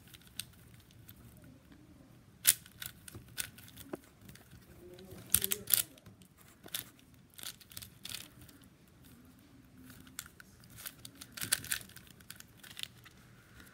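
Plastic 4x4 Rubik's cube being turned by hand: irregular clicks and clacks of its layers snapping into place, in quick bunches with short pauses between.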